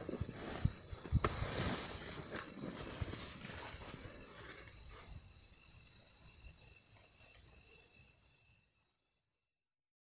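A cricket chirping steadily, a single high note repeated about three to four times a second, fading out near the end. In the first two seconds a few soft knocks and rustles sound closer by.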